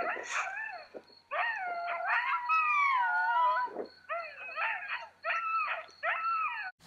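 Dog howling: one long wavering howl, then a quick run of shorter howls and yelps that cuts off abruptly near the end.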